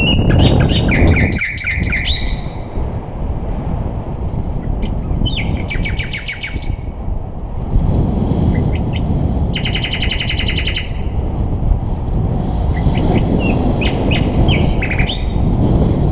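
Wind rushing over the microphone of a camera on a flying paraglider pilot. Over it come several bursts of high chirps and fast trills: falling chirps at the start, a pulsing trill around a third of the way in, and a dense rapid trill a little past the middle.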